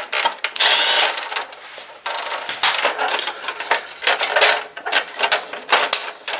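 Cordless drill-driver spinning out a screw from the printer's plastic frame in a short burst about half a second in. It is followed by irregular clicking and rattling of plastic parts and a loose screw being handled.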